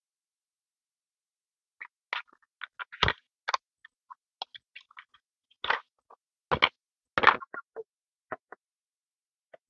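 Irregular crinkling, crackling and clicks of handling: a small wipe sachet torn open, then a clear plastic toy window piece rubbed with a wipe pad and flexing in the hands. Starts about two seconds in, with several sharper clicks and bumps among the crackles.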